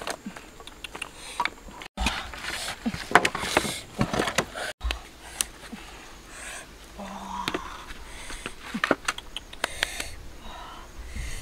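Dry sticks being snapped and laid into a stone fire pit: a string of sharp cracks and knocks of wood on wood and stone.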